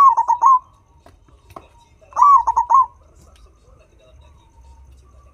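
A turtledove cooing: two phrases, each a longer opening coo followed by a few quick short coos, the first at the start and the second about two seconds in.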